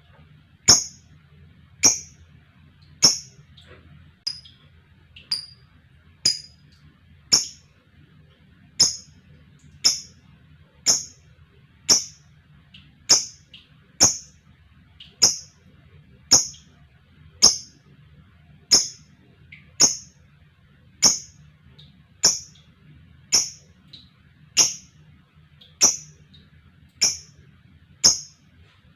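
A lovebird giving sharp, high single chirps at an even pace of about one a second, over a faint low hum.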